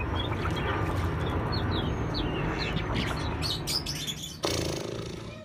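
Birds chirping repeatedly in short high calls over a steady low hum, then a sudden rush of noise about four seconds in that fades away.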